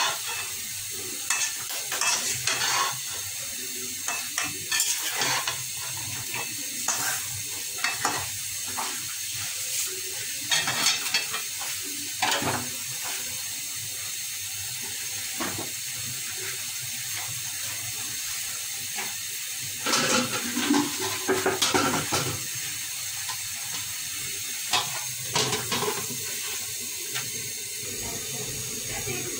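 Metal spatula scraping and clinking against a metal karahi as beef tripe with onions and spices is stirred, over a steady sizzle of frying. The stirring clatter comes in irregular strokes, with a denser burst of metal clatter about two-thirds of the way through and a few last knocks near the end.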